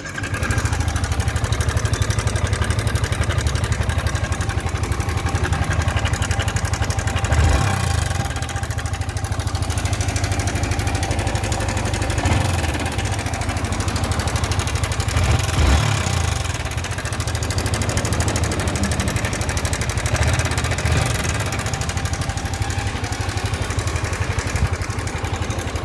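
Yamaha R15 motorcycle's single-cylinder engine running at a steady idle, with a few brief rises around 7, 12 and 16 seconds in. It makes an abnormal noise that the mechanic says he has never heard from a bike before; its cause is not yet identified.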